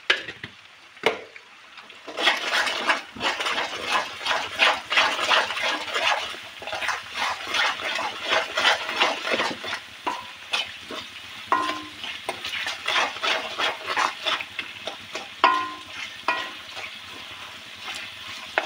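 Wooden spatula stirring and scraping a thick tomato-and-spice masala around a metal kadai as it fries in oil, with quick, irregular strokes from about two seconds in. A few brief ringing tones come through near the middle and later on.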